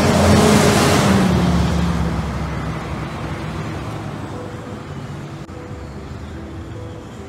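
A motor vehicle passing close by on a city street. Its noise peaks about half a second in, drops slightly in pitch, and fades away over the following seconds.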